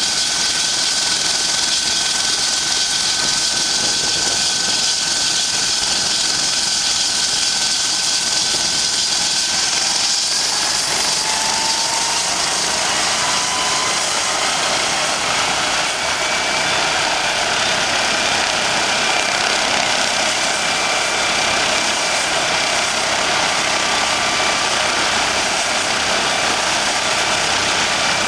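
Police MD Explorer twin-turbine NOTAR helicopter running on the ground with its rotor turning: a steady rotor and turbine noise with a turbine whine that rises in pitch about ten seconds in as the engines spool up.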